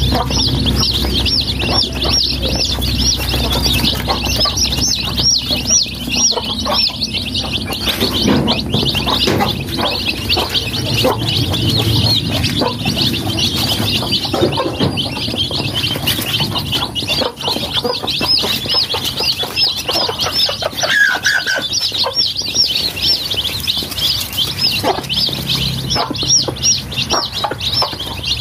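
A flock of domestic chicken chicks peeping continuously, a dense chorus of high, short rising-and-falling peeps overlapping one another, with scattered soft ticks underneath.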